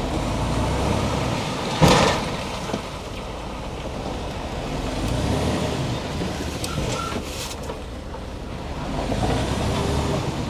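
Dump truck engine running steadily while the hydraulic tipper body is lowered after unloading coal. One sharp bang comes about two seconds in.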